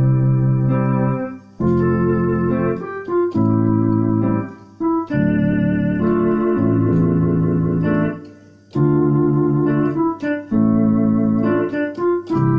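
Electronic keyboard played by hand: held chords that sustain without fading and change every second or so. The playing breaks off briefly twice, about a second and a half in and again about eight seconds in.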